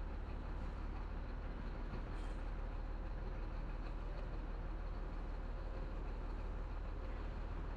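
Diesel engine of a Chenglong 375 tractor truck running at low, steady revs, heard from inside the cab while the truck reverses slowly.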